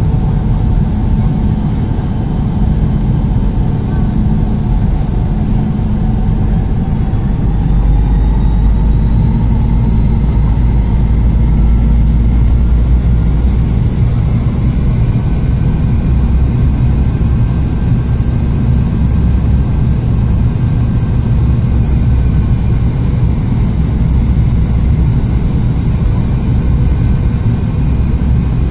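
Cabin noise of a Boeing 717 descending on approach: a steady low rumble of airflow and its rear-mounted Rolls-Royce BR715 turbofans, with a thin engine whine. The whine drifts up in pitch and the rumble grows louder about eight seconds in.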